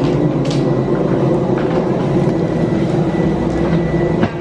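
Steady, loud mechanical drone with a thin, high, held whine above it and a couple of short knocks, the kind of machinery noise heard around an airliner during boarding.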